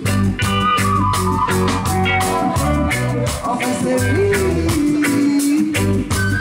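Live reggae band playing a steady beat with drums and bass, with electric guitar and sliding pitched lines on top.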